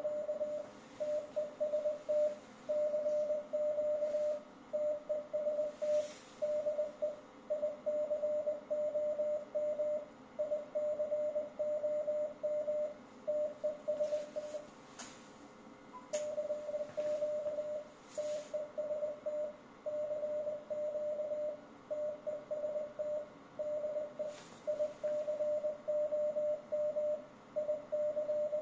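Morse code sidetone from a ham transceiver: a steady tone of about 600 Hz keyed in dots and dashes, with a pause of about a second partway through, as the rig transmits CW into an HF linear amplifier putting out about 1170 W. A few faint clicks sound now and then.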